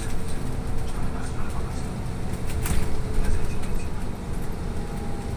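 Inside a trolleybus cabin on the move: a steady rumble from the tyres and running gear, with a faint steady hum over it. A single sharp click sounds about halfway through.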